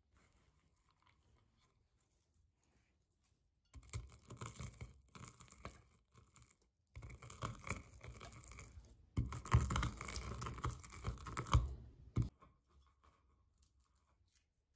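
Walnut kernels being crushed and ground under a wooden pestle on a wooden cutting board. Dense crunching and scraping comes in three bouts, starting about four seconds in; the last is the loudest, and it stops shortly before the end.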